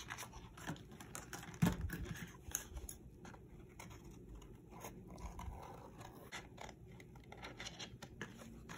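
Scissors snipping through glossy cardstock: a string of faint short cuts and paper rustles, with one louder knock just under two seconds in.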